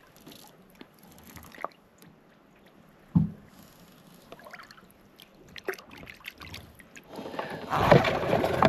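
Faint splashing and water sloshing at a boat's side as a small jewfish is let go into the water, with one loud knock about three seconds in. A louder rushing noise starts near the end.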